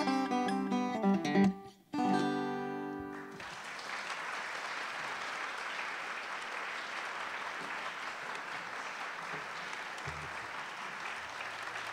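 Banjo playing the last notes of a song, ending on a final chord struck about two seconds in that rings for about a second. An audience then applauds steadily.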